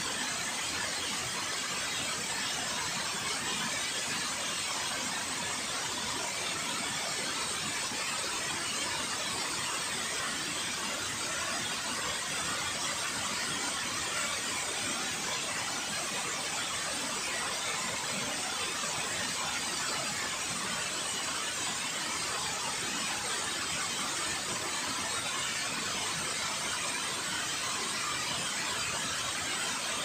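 Water pouring over a concrete dam spillway into the river: a steady, even rushing that does not change.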